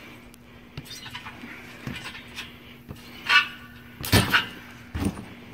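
Trampoline bouncing: light knocks and creaks from the bed and springs under a jumper, with a short squeaky sound about three and a half seconds in and louder sharp thuds a little after four seconds and again around five seconds.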